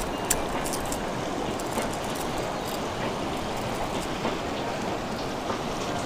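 Steady rushing of a fast, rocky mountain river, with a sharp tap just after the start.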